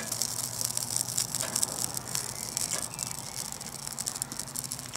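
Tinder burning fiercely in a Firebox folding steel stove, crackling with many small, irregular pops.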